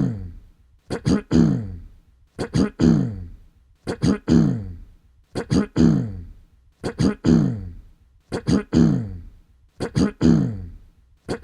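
A person clearing their throat over and over at an even pace, about every one and a half seconds. Each time there are three quick sharp catches, then a longer voiced 'ahem' that falls in pitch.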